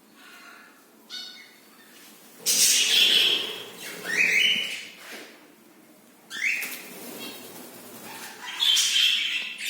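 Pet birds calling: a series of loud, harsh calls, several of them rising in pitch, coming about every two seconds with quieter gaps between.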